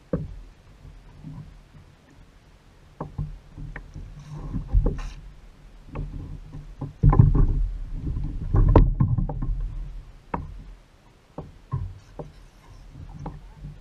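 Knocks and bumps of fishing gear and a landing net against a plastic sit-on-top kayak's hull as a freshly caught squid is netted and brought aboard. The sharp knocks come irregularly, with a louder stretch of low thumping and rumble about seven to ten seconds in.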